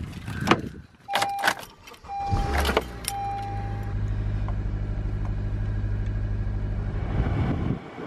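Car door clunking open and shut and a few short chimes from the car, then a little over two seconds in the car's engine starts and settles into a steady idle, which drops away just before the end.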